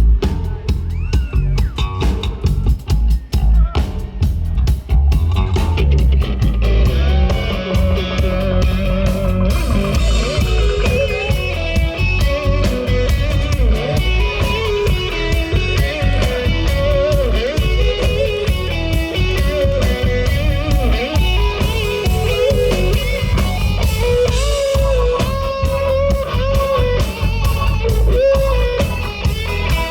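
Rock band playing live without vocals: an electric guitar lead line that bends and wavers in pitch over bass and drums, with the band filling out from about seven seconds in.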